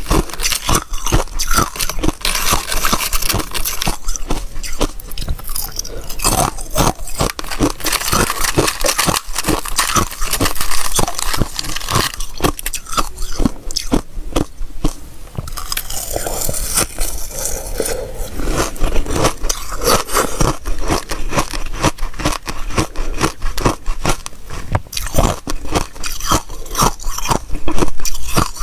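Thin, flaky ice crunching and crackling close to a clip-on microphone: a dense, unbroken run of sharp crackles as the ice is crumbled and bitten.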